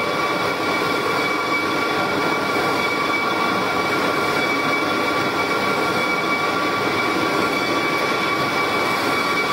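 Industrial machinery running steadily: a constant noisy hum with two steady high whining tones over it.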